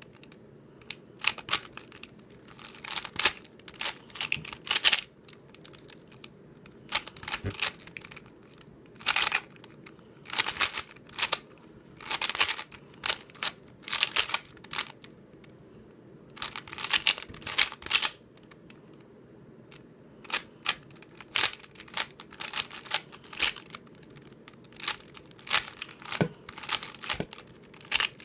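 YJ Sulong 3x3 speedcube being turned fast by hand: rapid runs of plastic clicks and clacks as the layers snap round, in bursts of a second or two with short pauses between.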